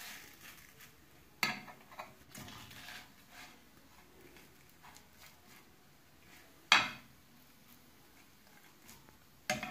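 Steel spoon tapping and scraping against a nonstick frying pan as a thin crepe is rolled up in it: a few separate clicks, the sharpest about seven seconds in.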